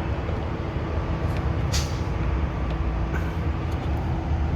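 Steady low rumble with a constant hum from a running engine or machine. A few light clicks and one short scrape about two seconds in sit on top of it.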